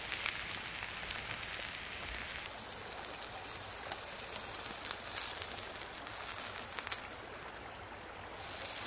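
Thick beef steak sizzling on a hot cast-iron griddle over a wood fire, a steady fine hiss with small pops. Near the end the sizzle drops for a moment as the steak is lifted off the grate, then picks up again.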